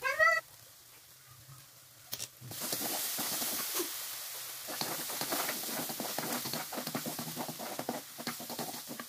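Chili spice paste sizzling in a non-stick wok while a plastic spatula stirs and scrapes it, starting about two and a half seconds in. At the very start, a brief high squeal rising in pitch, the loudest sound.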